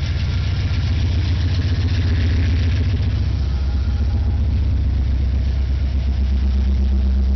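Diesel engines of a consist of Ferromex freight locomotives passing close below, a loud, steady low rumble. A further low tone joins about six seconds in as the next unit comes by.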